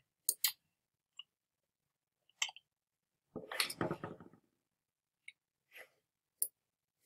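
Computer mouse clicking, a handful of single, separate clicks spread out with pauses between them. About three and a half seconds in there is a short voice-like sound lasting about a second.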